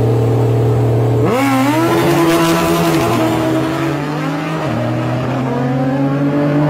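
A pickup truck and a sport motorcycle launching side by side from a standing start: engines held at steady revs, then about a second in both take off hard. The engine pitch rises and steps with gear shifts as they pull away.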